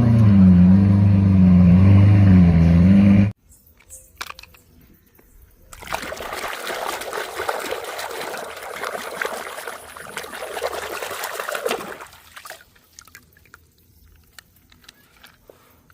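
A loud engine-like drone, wavering in pitch, cuts off abruptly about three seconds in. After a short pause, water runs or splashes steadily for about six seconds as toy vehicles are washed, then stops, leaving faint clicks and handling noises.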